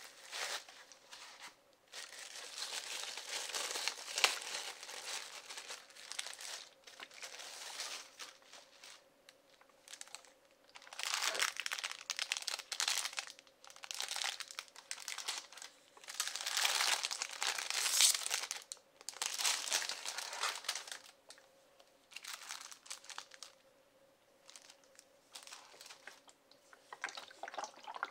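Clear plastic film wrapping and bags crinkling and rustling in irregular bursts as they are handled and pulled off the kit by hand, loudest a little past the middle.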